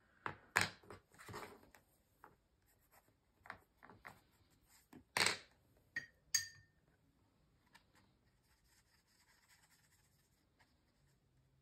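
Tombow brush pens being handled: a scatter of light clicks and taps of caps and pens in the first six seconds, one with a brief ring. Later comes a faint soft rubbing of a brush tip on paper.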